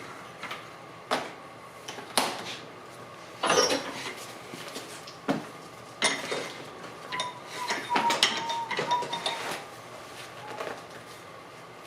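Metal parts clinking and knocking as they are handled on a workbench: a dozen irregular clanks and clinks, with a brief wavering metallic squeal between about seven and nine and a half seconds in, over a faint steady hum.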